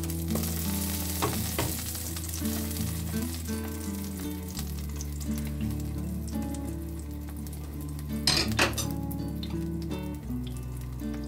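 Zucchini slices sizzling in hot oil in a nonstick pan, a steady frying hiss. A fork taps against the pan a few times as the slices are turned and lifted out, loudest about eight seconds in.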